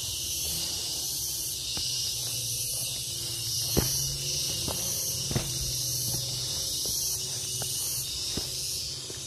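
A high-pitched insect chorus that swells and fades slowly, with footsteps on a path and a couple of sharper knocks about four and five and a half seconds in.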